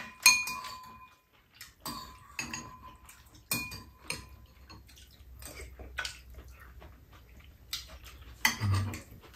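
Metal spoons and chopsticks clinking against bowls while eating: scattered sharp clinks, a few of them with a short metallic ring.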